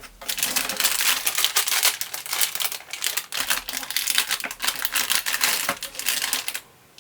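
Plastic packaging being handled and crinkled: a dense run of quick crackling clicks that stops suddenly near the end.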